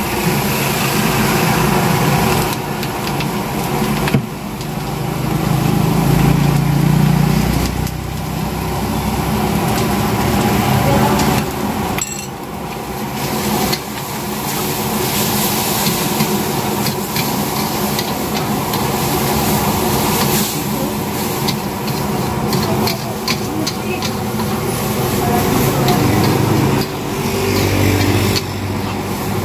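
Yellow noodles being stir-fried in a wok: a metal spatula repeatedly scraping and clanking against the wok, with sizzling over a steady background rush from the gas burner.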